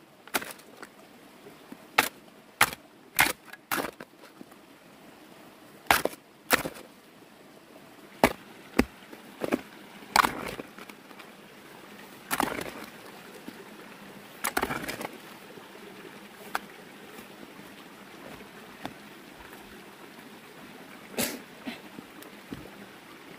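Hand digging tool chopping into soil: a run of sharp, irregular strikes, about a dozen in the first ten seconds. Then come a few longer scraping, rustling sounds of earth being moved, and one more strike near the end.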